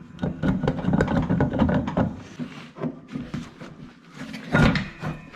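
Irregular clicks and knocks of hand tools on metal as a nut is worked loose on the Vespa's rear engine mounting, busiest in the first couple of seconds, with a louder knock near the end.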